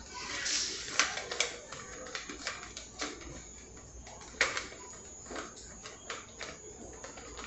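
Kitchen work sounds: irregular clicks, taps and knocks of things being handled on a counter, the sharpest about a second in and again about four and a half seconds in.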